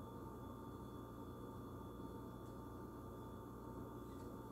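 Quiet room tone: a steady low hum with faint steady high tones over it and no distinct events.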